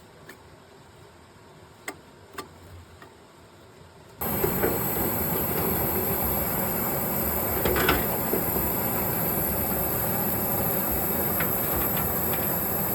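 A few faint clicks, then about four seconds in a loud, steady machine noise with a strong hiss starts abruptly and keeps going.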